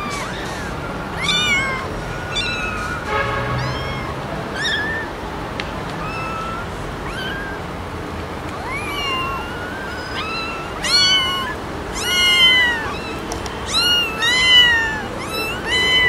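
Several young kittens meowing over and over: short, high-pitched cries that rise and fall in pitch, coming thicker, louder and overlapping in the second half.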